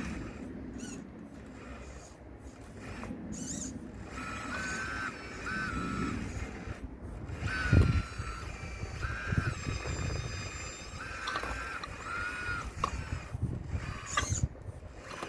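Motors of a radio-controlled Caterpillar excavator model whining in short spurts as the arm and bucket move, over low rumbling and knocking of stones; the loudest is a heavy thud about eight seconds in.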